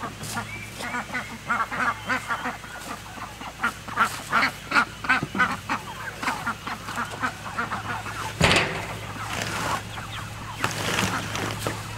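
Chickens calling in a rapid series of short squawks, several a second. About eight seconds in comes a louder rush of noise as their pen is moved over the grass.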